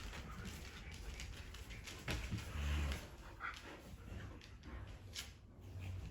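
Dogs moving about, with scattered clicks and one short, low dog vocalization about two seconds in.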